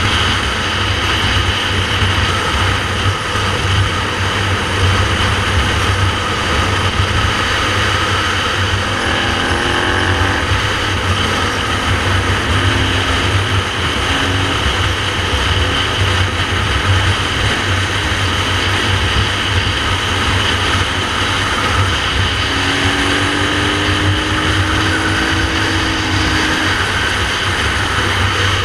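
Motorcycle riding at road speed, its engine running steadily under heavy wind rush on the rider's microphone. The engine note rises a little twice, about a third of the way in and again near the end.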